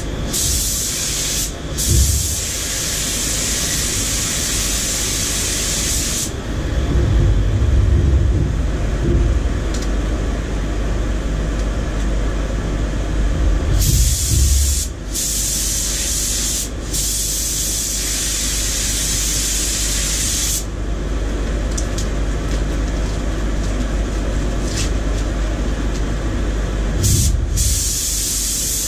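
Compressed-air paint spray gun hissing in three long bursts as it is triggered on and off, coating a car body. A steady low rumble runs underneath the whole time and swells a few times.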